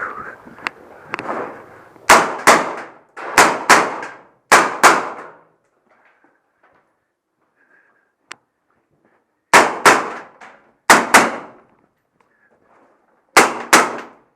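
Gunshots fired in quick pairs: about six double taps in three bursts separated by pauses, each shot sharp with a short ringing echo off the walls of a shoot house.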